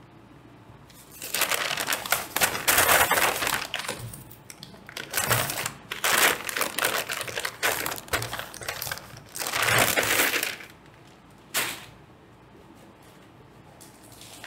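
Packaging rustling and crinkling as items are handled and dug out of a box of crinkle-cut paper shred. It comes in several bursts of a second or two, with quiet gaps between them.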